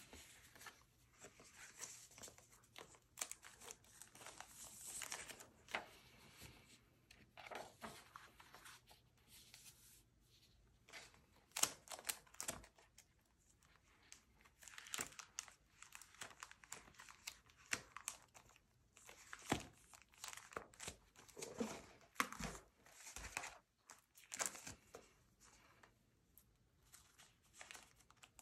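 Crinkling and rustling of clear plastic sleeves and sticker sheets as they are handled and flipped through, with scattered small clicks and taps; a sharp click about twelve seconds in is the loudest.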